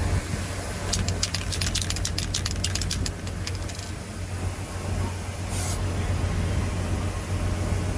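An aerosol can of penetrant-inspection chemical shaken hard, its mixing ball rattling rapidly for about three seconds, then one short spray hiss a couple of seconds later. A steady low hum runs underneath.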